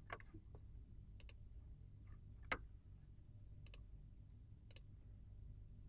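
Quiet computer mouse clicks over a low steady hum: five clicks about a second apart, several as quick press-and-release pairs, the loudest about halfway through.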